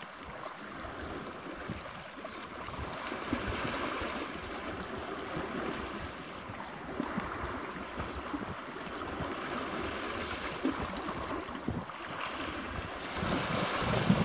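Wind and sea ambience: a steady rushing hiss of wind and waves, with uneven gusts buffeting the microphone, growing louder near the end.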